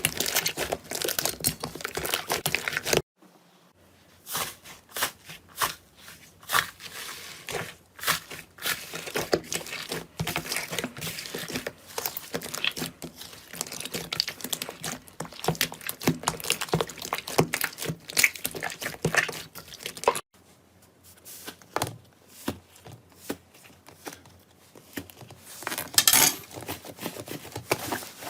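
Slime being squeezed and worked by hand: a dense run of small crackles, pops and squelches. It breaks off abruptly about three seconds in and again about twenty seconds in.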